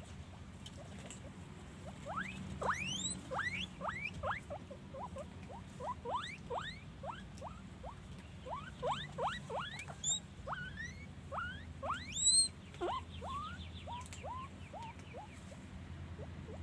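Guinea pigs wheeking: a long run of short squeaks, each rising sharply in pitch, that starts about two seconds in, with the loudest near the middle, over a steady low hum.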